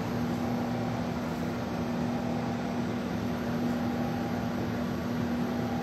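Steady machine hum: a constant low tone over an even hiss, with no change or distinct events.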